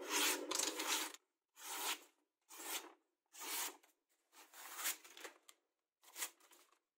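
A freshly sharpened steel knife slicing through sheets of paper in about six short separate cuts with brief pauses between: a paper test of how sharp the edge is.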